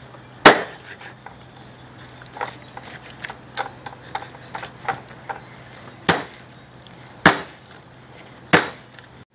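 A large kitchen knife chopping through skin-on wild boar meat onto a plastic cutting board. Four sharp knocks of the blade hitting the board, one about half a second in and three in the last few seconds, with quieter knife clicks and scrapes in between.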